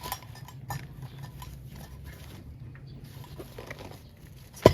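Light clicks and taps of camping utensils and their case being handled, with one sharper click near the end, over a low steady hum.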